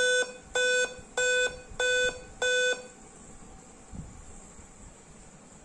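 Dell Inspiron 3542 laptop's built-in beeper sounding five short, evenly spaced beeps at startup. This is Dell's five-beep code, which signals a real-time clock (CMOS battery) failure and goes with the 'Time-of-day not set' error.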